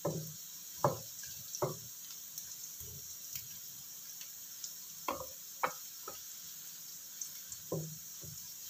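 Spatula stirring diced tempeh around a wok, giving irregular knocks and scrapes against the pan about eight times over a light, steady sizzle of frying oil.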